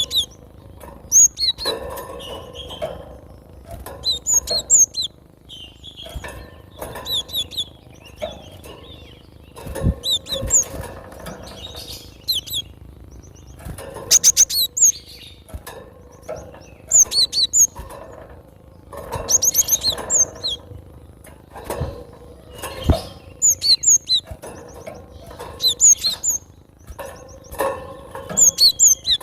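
Cinereous tit (gelatik batu) singing: short runs of sharp, high chirping notes, repeated every second or two.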